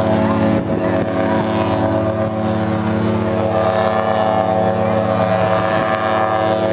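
Steady, deep drone from a vessel on the water: one held chord of tones with many overtones.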